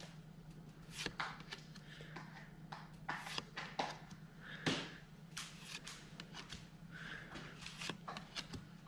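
Old Pokémon trading cards handled one by one: irregular soft slides and light flicks of card stock as each card is pulled off the stack and laid down, over a faint steady low hum.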